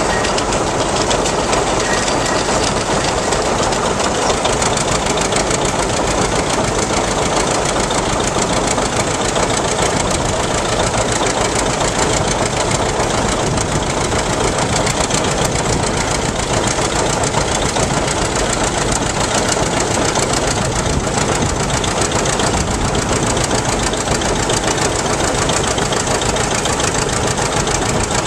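John Deere 720's two-cylinder engine running steadily with a fast, even pulsing beat, working under load on a pulling track.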